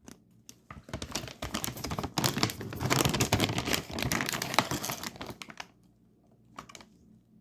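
Plastic snack bag crinkling and crackling as it is torn and pulled open, dying down about two-thirds of the way through with a few faint crinkles near the end.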